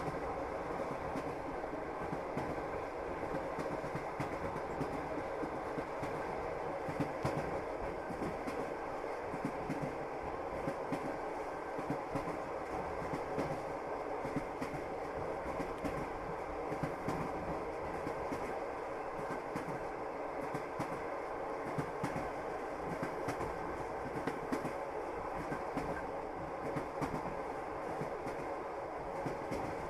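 Passenger train rolling along the track: a steady running rumble with the clack of the wheels over the rail joints.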